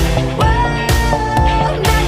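Background pop music with a steady beat; a melody holds one long note through the middle.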